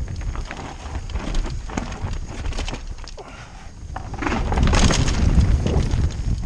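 Mountain bike descending a dirt trail, heard from a helmet-mounted camera: wind rumble on the microphone with tyres on dirt, and the bike's frame and chain rattling and clicking. It grows louder and rougher from about four seconds in.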